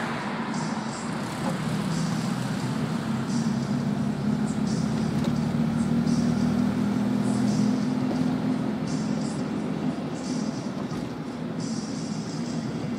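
Car engine droning steadily at highway cruising speed, heard from inside the cabin together with road and wind noise.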